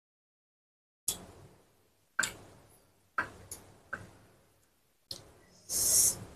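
Close-miked eating sounds: about a second of dead silence, then sharp crunches of chewing roughly once a second, with a louder, longer rustling crunch near the end.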